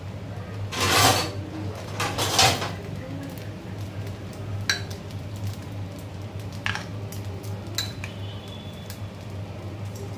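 Steel spoon clinking and scraping against a glass bowl as potato masala filling is scooped out. Two louder rough scraping noises come about a second and two and a half seconds in, followed by a few sharp clinks with a brief ringing.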